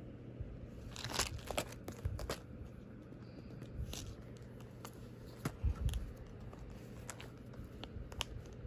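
Cardboard box of false nails handled and turned over: irregular rustles, scrapes and sharp clicks of card, with a few soft thumps around the middle.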